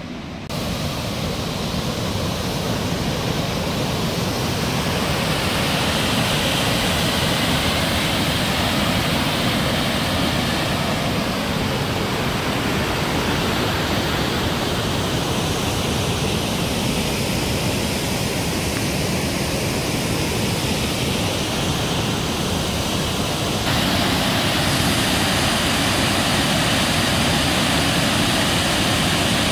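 Loud, steady rush of water pouring over Upper Tahquamenon Falls, a broad waterfall, starting suddenly about half a second in.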